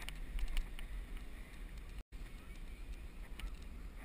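Wind rumbling on an action camera's microphone while riding a bicycle, with tyre noise and small scattered clicks and rattles from the bike. The sound cuts out for an instant about halfway through.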